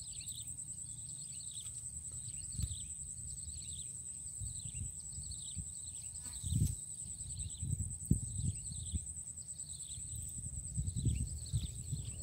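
Steady, fast-pulsing high insect trill, with short falling chirps repeating a little more than once a second. A few dull low thumps come through about halfway and near the end.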